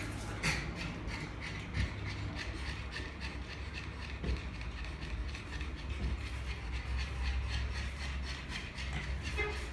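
Two pugs panting rapidly and raspily, mouths open and tongues out, over a steady low rumble.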